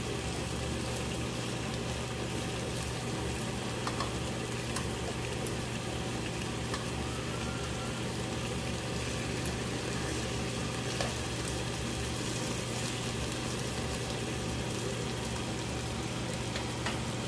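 Beef cubes and sliced red bell pepper sizzling gently and steadily in a nonstick frying pan over low heat, with a few light clicks of tongs against the pan.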